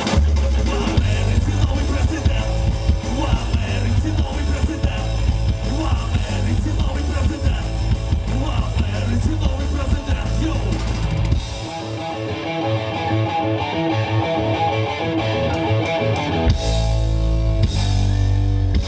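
Live rock band playing an instrumental passage with guitar and drum kit. About two-thirds of the way in, the bass and drums drop out, leaving a repeated melodic line, and the full band crashes back in near the end.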